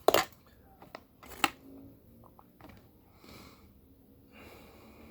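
Cutlery and a takeout food container being handled as a steak is dug into: small clicks, taps and scrapes, with a sharper click right at the start and another about a second and a half in.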